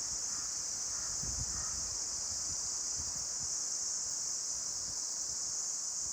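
Wind rustling through tree leaves, with a steady high-pitched hiss over it. Low gusts of wind buffet the microphone in the first second and a half.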